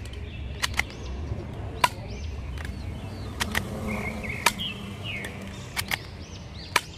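Toy Glock pistol shooting at plastic bowling pins: a series of sharp snaps, irregularly spaced, some in quick pairs.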